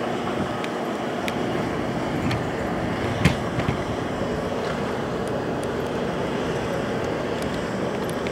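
Steady rooftop city hum: a continuous drone of rooftop ventilation equipment mixed with street traffic from below. A sharp click about three seconds in, with a few fainter ticks.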